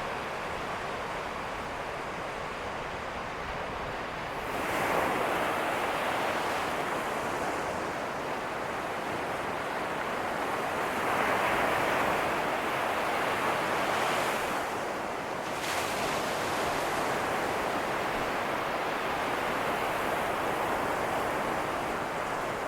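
Ocean surf breaking on a beach: a steady wash of noise that swells louder as waves break, about five seconds in and again around eleven to fourteen seconds.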